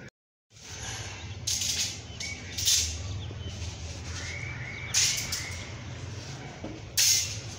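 Birds chirping over a steady low hum, with four short, sharp noises spread through it.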